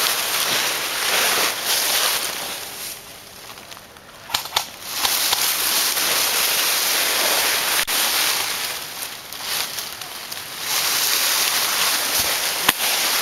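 Rustling movement noise and hiss on the microphone as a player moves quickly through woodland, easing off for a couple of seconds about a third of the way in. A few sharp clicks stand out, near the middle and near the end.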